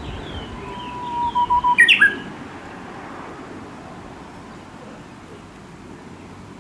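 Japanese bush warbler singing its "hoo-hokekyo" song once: a long steady whistled note, then a quick, louder, higher flourish that ends on a short falling note. Fainter bird calls sound behind it.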